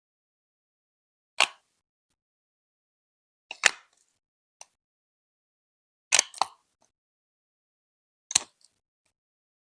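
Hard plastic Lego Duplo bricks clicking as they are set and pressed together, one sharp click about every two seconds, several in quick pairs, with dead silence between.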